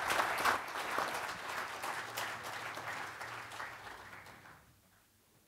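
Audience applauding, the clapping slowly dying down and then cut off after about four and a half seconds.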